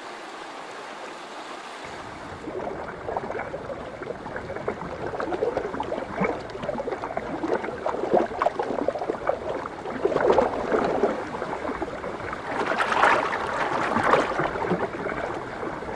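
Shallow river water running, with irregular splashing and gurgling from jostling spawning sockeye salmon. It starts as a steady hiss and gets busier after about two seconds.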